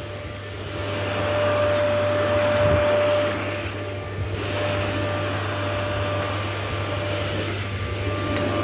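Vacuum cleaner running steadily over a spring mattress, a motor rush with a thin steady whine, its loudness swelling for a couple of seconds and dipping briefly about four seconds in.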